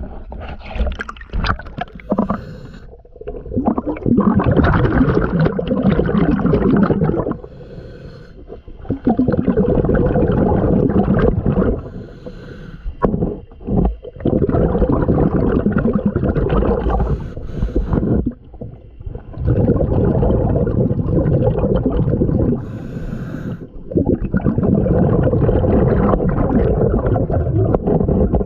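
Scuba diver breathing through a regulator underwater: about five long, bubbling exhalations of roughly three to four seconds each, with a short hissing inhalation between them.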